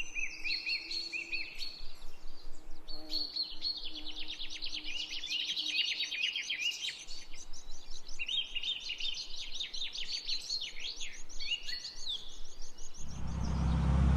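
Several songbirds singing, with fast trills of rapidly repeated high notes. Near the end, a steady rushing noise comes in and drowns them out.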